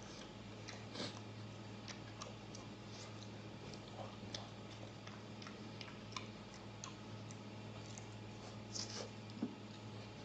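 A person chewing mouthfuls of roast lamb leg close to the microphone: scattered small wet mouth clicks and lip smacks over a steady low hum.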